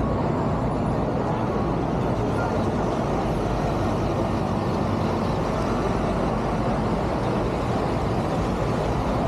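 Steady street traffic noise of cars and buses running past on a busy city road.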